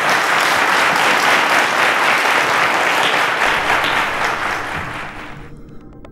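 Studio audience applauding, full at first, then thinning and dying away over the last second or two.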